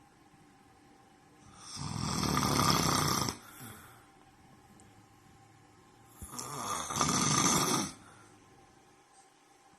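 A man snoring loudly in his sleep: two long snores, each about two seconds, some four and a half seconds apart, with quiet in between.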